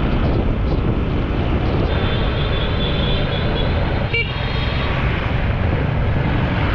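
Honda 150cc dirt bike engine running steadily on the move, heard from the rider's camera, with a few brief high tones in the middle of the ride.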